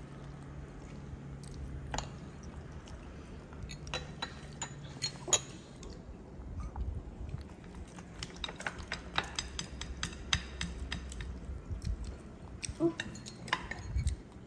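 Chopsticks and spoons clinking and tapping against ceramic bowls and plates during a meal: scattered light clicks, with a quick run of them about two-thirds of the way through.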